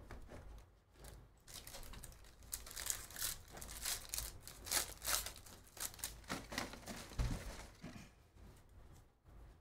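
Trading card pack wrappers crinkling and tearing open, a quick run of crackles and rustles, with a soft thump about seven seconds in.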